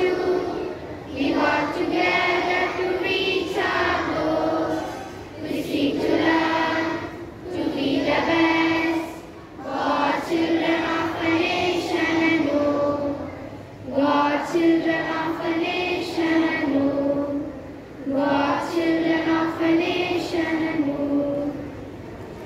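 A group of schoolchildren singing their school anthem together in unison, in phrases of held notes with short breaks between; the singing trails off near the end.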